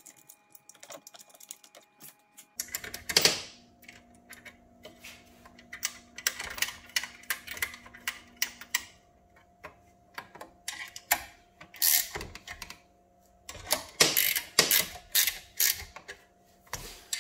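Irregular metallic clicks and clinks of bolts being handled and started into a Polaris PB460 booster pump's motor and housing by hand, coming in scattered clusters.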